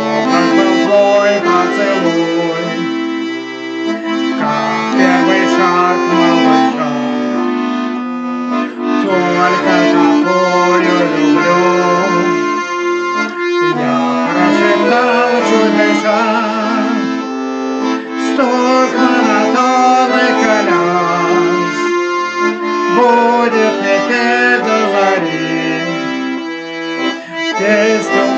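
Accordion playing a melody over sustained chords.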